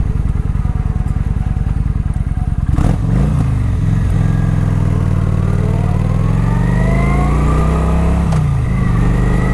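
2013 Kawasaki Vulcan 900 Classic's V-twin on its stock exhaust, heard from inside the rider's helmet, pulling under way. The engine note rises, breaks and drops at a gear change about three seconds in, climbs again, and drops at another shift a little after eight seconds.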